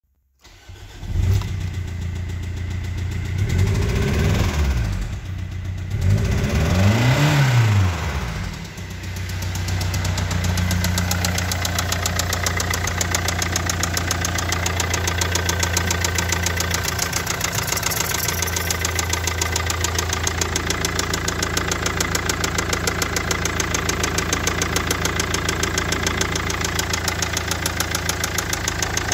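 Mazda 6 GG's 2.0-litre MZR-CD turbodiesel (RF) starting about a second in, revved twice, then settling into a steady idle with an even diesel clatter.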